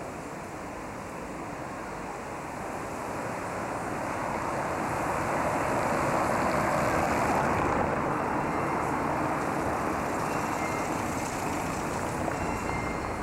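Street traffic noise of cars driving past on a city street; one car passing close by swells to the loudest point about six to eight seconds in, then fades slowly.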